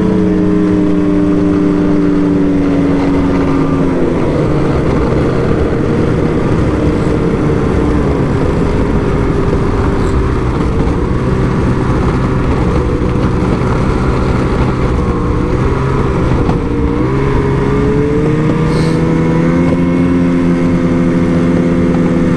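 Engine of a small vehicle running as it is ridden along a snowy trail. Its pitch drops about four seconds in, stays lower for a while, then climbs again between about seventeen and nineteen seconds.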